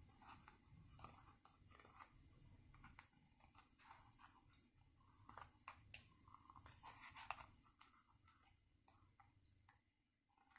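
Faint rubbing and small scraping ticks of copper foil tape being burnished down onto the edge of a glass paperweight, stopping about eight seconds in.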